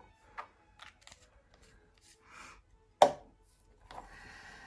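Light clicks and taps of spoons and a hot-sauce bottle being handled, with one sharp knock about three seconds in and some soft rustling.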